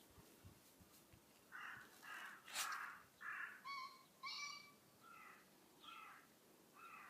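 A rapid run of about nine short sneezes, beginning about a second and a half in. The third is the loudest, the later ones fainter, and a few have a squeaky edge.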